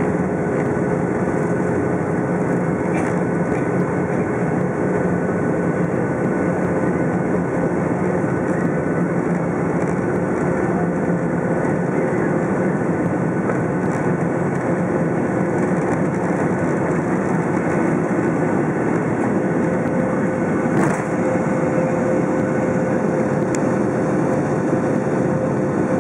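Boeing 757 jet engines idling as the aircraft taxis, heard inside the cabin: a steady rumble with a faint steady hum and a high tone over it.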